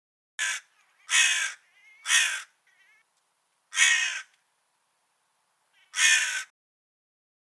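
Crow cawing: five harsh caws in an uneven run, the first short, with softer notes between them.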